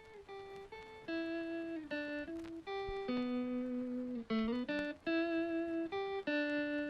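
Instrumental intro music: a single melody of held notes that step up and down in pitch every half second or so, getting louder about a second in.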